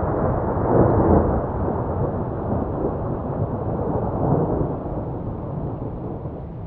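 Deep, rolling thunder-like rumble with no distinct tone, swelling to its loudest about a second in and then slowly fading away.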